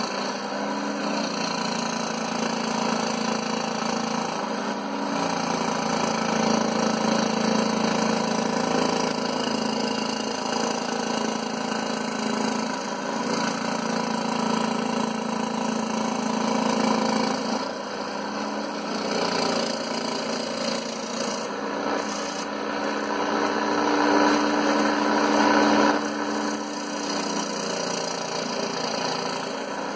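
Scroll saw running steadily, its reciprocating blade cutting through MDF along a paper-template letter outline, the cutting sound rising and falling a little.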